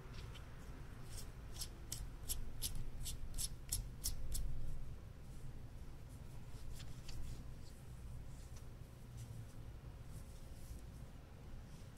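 Small sharp clicks, about three a second for some three seconds and then a few scattered ones, as gloved hands screw the metal puncher front onto the body of a manual tissue microarray punch.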